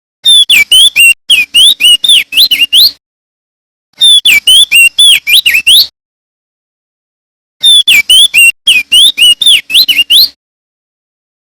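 Male opior jambul (crested white-eye) singing loudly: three runs of rapid whistled notes that sweep up and down, each lasting two to three seconds, separated by short silences.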